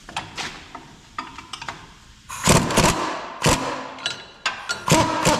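Light metal tool clinks, then about five hard hammer blows on metal suspension parts in the second half, each with a short metallic ring, as a stuck shock or lift-kit bracket is knocked loose.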